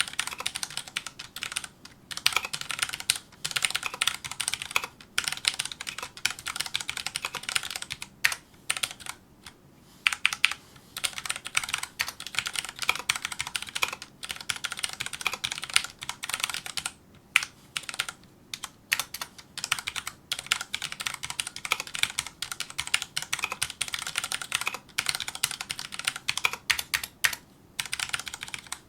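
Fast touch-typing on a Filco Majestouch2 mechanical keyboard with Cherry MX Brown switches: dense flurries of key clacks broken by brief pauses, with a few louder strokes standing out.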